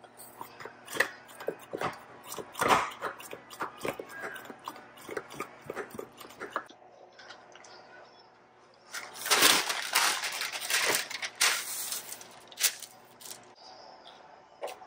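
Misto oil sprayer being pumped by hand: a quick run of clicking strokes for about six seconds. After a pause comes loud rustling and crinkling of parchment paper being handled and laid on a metal sheet pan.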